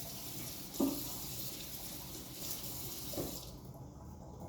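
Kitchen tap running water into a sink, shut off about three and a half seconds in, with a couple of soft knocks while it runs.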